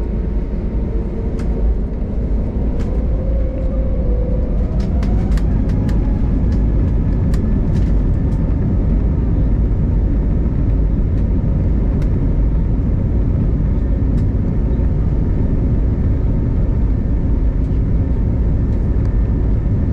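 Airbus A320neo engines and airflow heard inside the cabin: a loud, steady rumble. Over the first few seconds an engine tone rises in pitch and the sound grows louder before levelling off, with a few light clicks and rattles in the middle.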